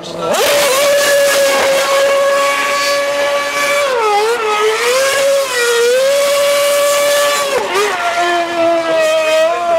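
Red Bull Formula One car's engine held high in the revs as it spins donuts, its pitch steady for seconds at a time, then dipping and climbing back twice and dropping sharply near the end. The rear tyres spin against the tarmac throughout.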